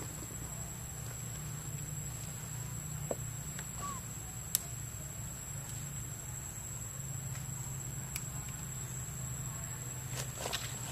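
Outdoor forest ambience: a steady low hum and a thin, continuous high-pitched whine, with a few faint clicks and one brief faint chirp about four seconds in.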